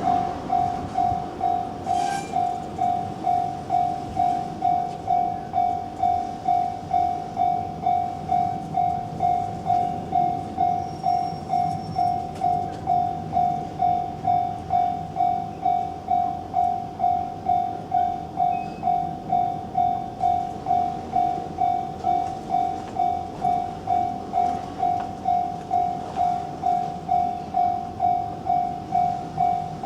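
Japanese railway level-crossing warning bell ringing steadily, an even ding a little under twice a second, with a low rumble beneath it.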